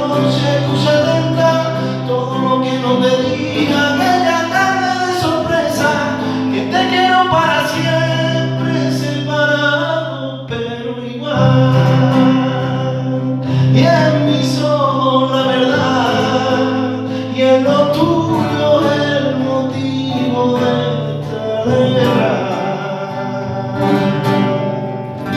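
Coro rociero (Andalusian rociero choir) singing together, accompanied by strummed Spanish guitar.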